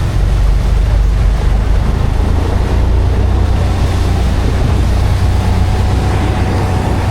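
Vehicle running, heard from inside the cab: a steady, loud low engine and road rumble.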